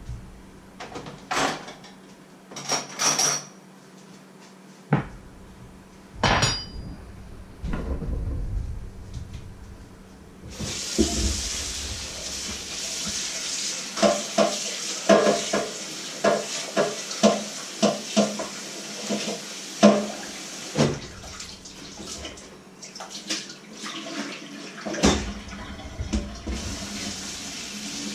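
Kitchen tap running into a sink while dishes are washed, with many sharp clinks and knocks of crockery and pans. The first part holds only scattered knocks; the water comes on about a third of the way in, stops about three quarters of the way through, and runs again near the end.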